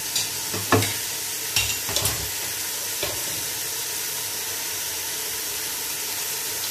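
Beef pieces sizzling steadily in hot oil in an open pressure cooker, with a few short knocks of the stirring spoon against the pot in the first three seconds.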